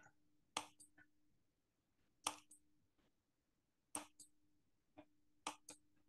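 Computer mouse clicking as the lesson's slides are advanced: five short, sharp clicks, several in quick pairs, spaced about one to one and a half seconds apart. A faint steady hum lies under them.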